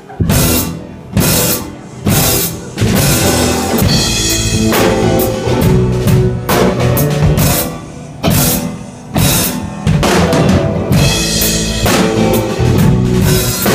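Blues band starting an instrumental intro: a few separate drum-kit hits, then drums and guitar playing together from about three seconds in.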